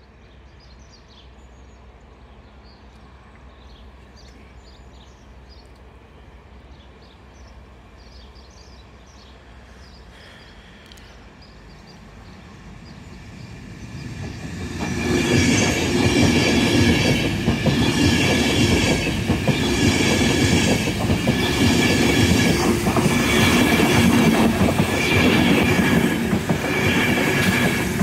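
InterCity 225 electric passenger train with Mark 4 coaches approaching, faint at first and growing louder from about twelve seconds in, then passing close at speed: a loud rush of steel wheels on rail with a regular clatter about every second as each coach's bogies go by.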